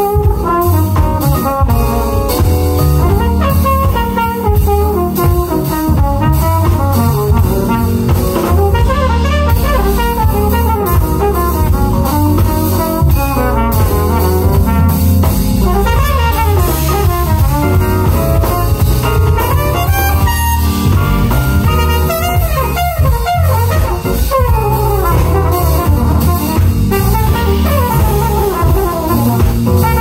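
Live jazz band playing loud: a saxophone solo runs in quick, winding lines over electric bass and a drum kit.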